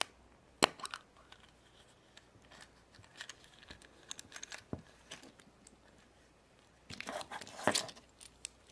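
Kinder Surprise yellow plastic capsule being snapped open and small plastic toy parts handled in the fingers: a sharp click a little after the start, scattered light clicks and rustles, and a busier burst of plastic handling near the end.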